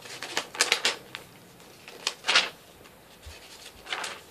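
Paper pages of a DVD booklet being handled and turned: a few short papery rustles and taps, the longest about two seconds in.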